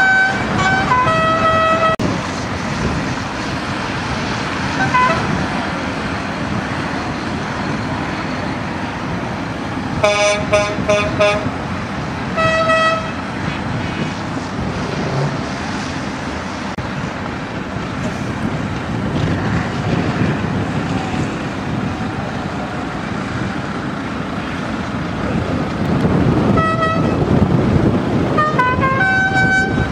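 Heavy trucks driving past with a steady diesel engine and tyre rumble, their horns tooting in short blasts: once at the start, a quick run of toots about a third of the way in, another shortly after, and several more near the end.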